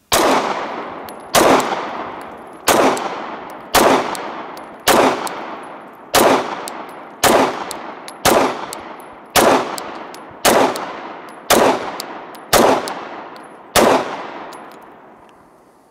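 Glock 19 9mm pistol firing 13 shots at a steady pace of about one a second. Each shot is followed by a long fading echo.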